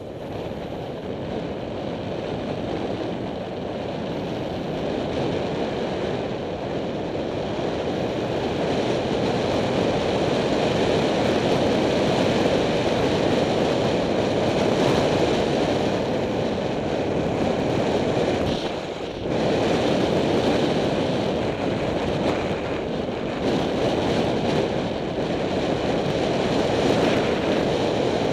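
Wind rushing over a helmet-mounted camera's microphone on a fast bicycle descent, a steady rush that grows louder over the first ten seconds or so as speed builds, with a brief dip about nineteen seconds in.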